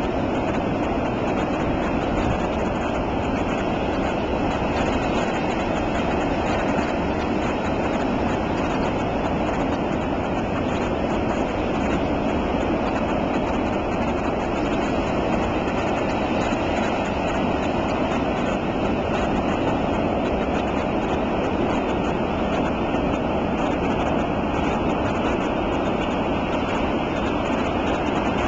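Steady roar of ocean surf breaking on the shore, even and unbroken.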